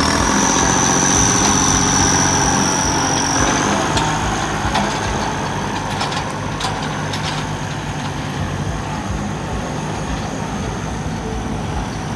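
Kubota farm tractor diesel engine running, with a high, steady whistle above the engine note throughout. The sound is louder for the first few seconds, and a few sharp clicks come around the middle.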